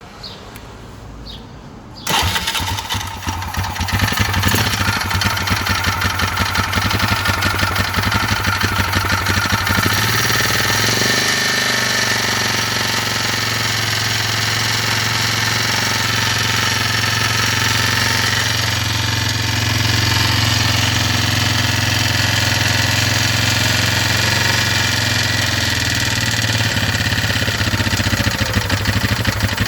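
Yamaha Grizzly 600 ATV's single-cylinder four-stroke engine starting about two seconds in, then idling steadily. It carries a mechanical noise that the owner cannot place, with the cam chain, its tensioner and the valve adjustment already checked and found good.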